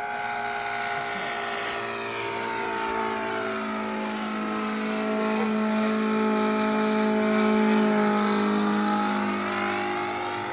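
RC Stearman biplane's engine running steadily at a constant pitch in flight, growing louder to a peak about eight seconds in as the plane passes nearer, then easing off.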